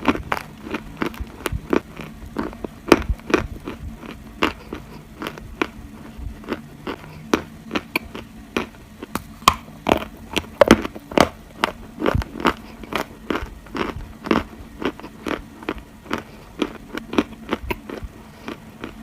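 Dry Turkestan edible clay being bitten and chewed: a steady run of sharp crunches, about two a second.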